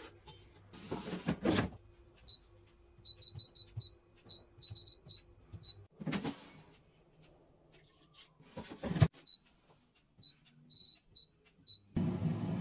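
Short, high electronic beeps from a Cecotec air fryer's control panel, in two irregular runs, with a few knocks and clatters of handling in between.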